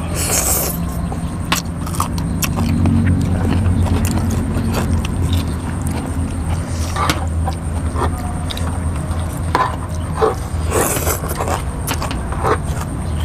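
Wet noodle slurping, once at the start and again about 11 seconds in, with small clicks and clinks of utensils against glass bowls and some chewing sounds, over a steady low rumble.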